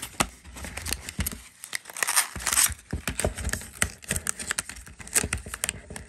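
A plastic press-on nail tray is slid into its paper box and the box flap is folded shut. The handling gives rustling and scraping with many small clicks and taps, and a longer rustle about two seconds in.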